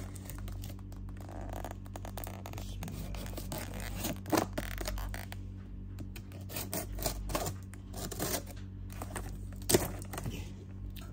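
Small kitchen knife scraping and slicing through the tape on a cardboard box, with irregular scratches and clicks of the box being handled and two sharper knocks.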